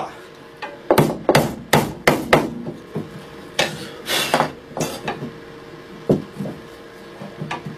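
Hammer blows on a chisel cutting a small seat into a hardwood saw arm: a quick run of five sharp strikes, a short scrape a few seconds in, then a few single knocks further apart.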